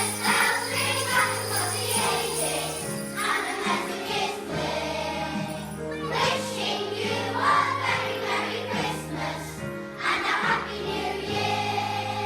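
A children's choir singing a Christmas song with jingle bells over an instrumental accompaniment.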